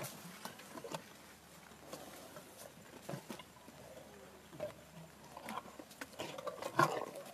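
Asian elephant chewing grass close up: irregular crunching and rustling from its mouth, loudest about a second before the end.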